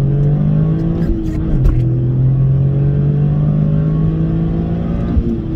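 Toyota GR Corolla's turbocharged 1.6-litre three-cylinder (G16E-GTS) accelerating hard from inside the cabin: a second-gear pull, a quick upshift to third about a second in, then a long rising climb in third. The engine note falls near the end as the next shift comes.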